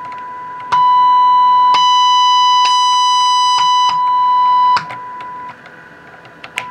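1963 Rambler AM car radio's loudspeaker sounding the steady test tone of a 262 kHz AM signal injected at its IF amplifier, the sign that the IF stage is passing signal. The tone jumps much louder and turns harsh about a second in, with a click at each step of the generator's output level. It drops back near five seconds, then fades lower, and a sharp click comes near the end.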